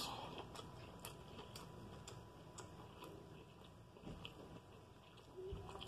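Near silence, with faint, regular ticks about twice a second.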